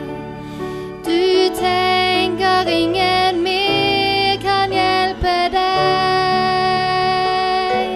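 A young woman singing a slow Norwegian song to her own upright piano accompaniment; the voice comes in about a second in over sustained piano tones.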